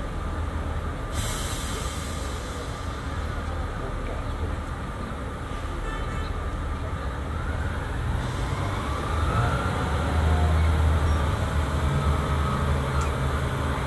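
Class 144 Pacer diesel multiple unit rolling slowly into the platform, its diesel engine running with a low drone that gets louder as it comes near. A steady high hiss runs for several seconds near the start, and a faint rising whine comes about halfway through.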